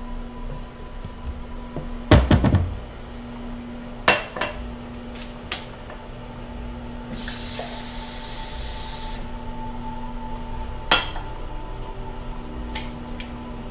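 Kitchen handling sounds. A glass clatters down on a stone countertop about two seconds in, followed by a couple of sharp knocks. A tap runs for about two seconds, filling the glass, and there is a single click near the end.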